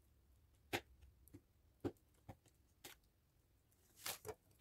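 Faint, scattered clicks and taps of fingers handling and picking at a small taped-shut product box, with a slightly louder little cluster about four seconds in.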